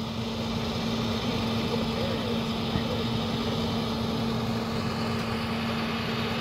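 Flatbed tow truck's engine running steadily, a constant low hum with no change in pitch.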